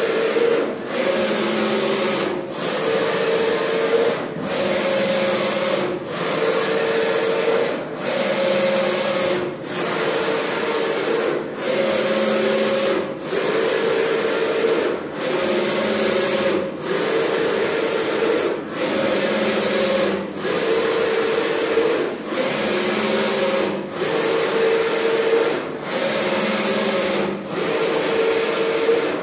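Flat-bed screen printing machine's motor-driven squeegee carriage stroking back and forth across the screen in bi-directional printing: a steady motor whine broken by a brief pause at each reversal, about every two seconds, its pitch alternating between one stroke and the next.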